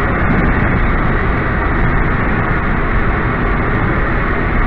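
Steady road and engine noise heard inside a Hyundai i30 estate driving slowly.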